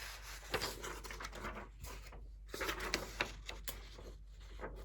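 Sheets of paper rustling and crinkling as printed pages are handled and turned, in a few short scrapes and crackles.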